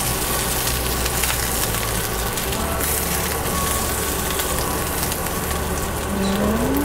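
Marinated pork cutlets sizzling in hot oil in a skillet during a second sear for browning: a steady crackling sizzle, with a few light clicks of metal tongs as the cutlets are lifted out.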